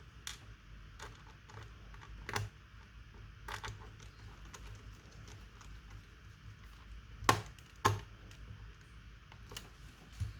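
Irregular hard plastic clicks and taps from handling a laptop, with two louder knocks about half a second apart around seven seconds in.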